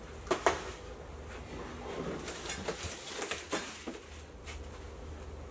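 A flat-pack desk's cardboard shipping carton and panels being handled: two sharp knocks about half a second in, then a run of lighter cardboard rustling, scraping and tapping.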